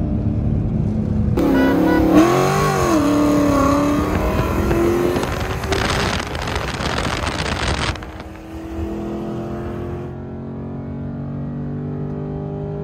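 Dodge Challenger 392's 6.4-litre HEMI V8 revving hard. A loud rush of tyre noise, with the engine note swooping up and down, runs from about a second and a half in to about eight seconds in. After that the engine note climbs steadily.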